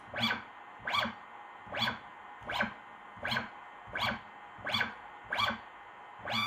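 57HSE2.2N hybrid stepper motor on an HBS57 driver making short rapid jog moves, unloaded. Each move is a quick whine that rises and falls in pitch as the motor accelerates hard and stops, eight times about three-quarters of a second apart. Near the end the whine rises and holds steady as a longer move at full speed begins.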